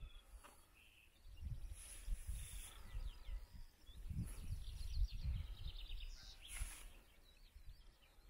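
Wind gusting on the microphone in irregular low rumbles, with small birds chirping and giving short rapid trills in the background.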